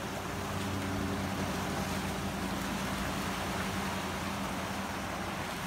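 Ocean surf washing and breaking over dark rocks in a steady rush of white noise. A steady low mechanical hum runs beneath it and fades out near the end.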